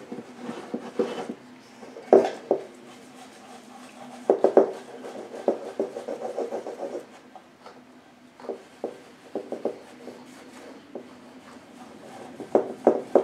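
Soft microfiber cloth rubbing a thin coat of wax onto a wood-mounted painting panel in circular strokes, with scattered light knocks as the panel shifts on the table.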